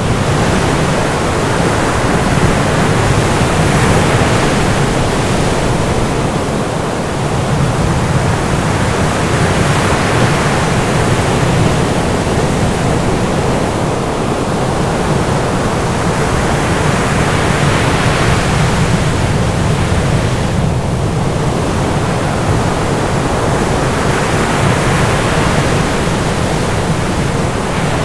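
A loud, steady rushing noise with no distinct events, swelling and easing every few seconds.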